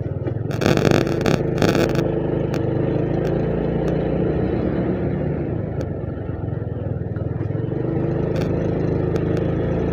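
Motorbike engine running steadily while riding, with wind and road noise.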